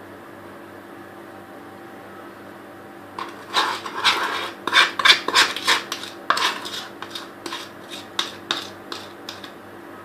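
A spoon scraping and knocking against a bowl in a quick, irregular run of strokes, scooping out chocolate icing to pour over a cake. The strokes start about three seconds in, after a faint steady hum, and die away near the end.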